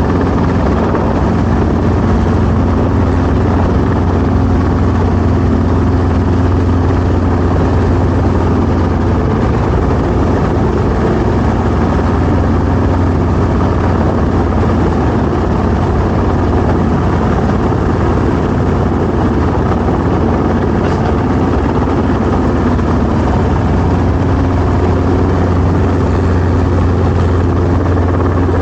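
Helicopter engine and rotor running steadily: a loud, even low drone with constant noise above it and no change in pitch or level.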